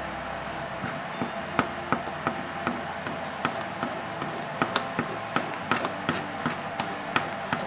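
Razor blade working hardened encaustic wax along a laid-in string on a panel: irregular sharp clicks and scrapes, a few a second, starting about a second in and coming more often in the second half.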